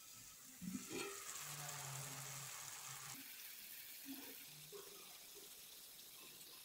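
Shrimp in tomato sauce sizzling and simmering in a clay tajine as its conical lid is lifted off. A brief knock just before a second in, then a steady sizzle that is loudest for the next two seconds and eases off.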